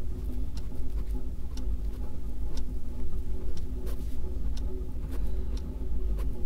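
Clock ticking about once a second over a low, steady hum.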